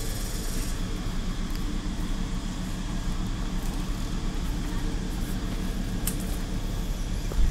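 A steady low hum of a running motor, unchanging throughout, with a couple of faint clicks near the end.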